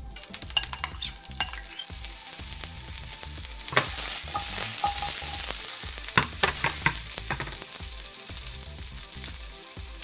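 Olive-oil-coated asparagus pieces sizzling as they fry in a hot nonstick pan. The sizzle starts about two seconds in, after a few clicks of a spoon scraping the bowl, and a few knocks come midway as the asparagus is stirred.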